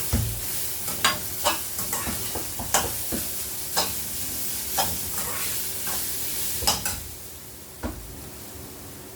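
Food frying in sesame oil in a pan, sizzling while a spatula stirs it, scraping and knocking against the pan about once a second. The stirring stops about seven seconds in, leaving a quieter sizzle and one last knock near the end.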